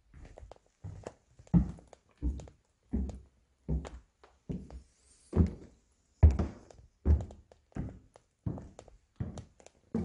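Slow, heavy footsteps on bare wooden stairs and floorboards, one dull thud roughly every 0.7 seconds. The heaviest step lands a little past the middle.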